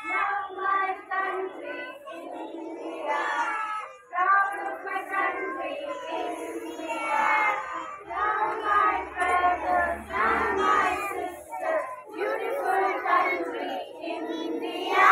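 A crowd of young children's voices chanting loudly in unison, short phrase after phrase with brief pauses between them.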